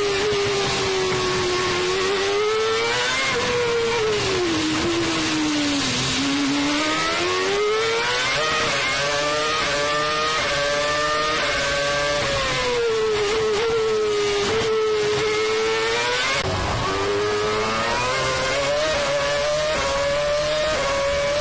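Formula One 2.4-litre V8 engines heard from onboard at racing speed, first the Ferrari's and then the McLaren-Mercedes'. The pitch sweeps down as the car slows for corners and climbs again through the gears under acceleration. About 16 seconds in, the sound switches abruptly to the second car, which holds a higher, steadier pitch with quick gearchanges.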